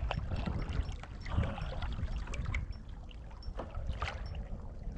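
Water sloshing around a sit-on-top kayak at sea over a low, steady rumble, with a few scattered light clicks and knocks from handling a spinning rod and reel.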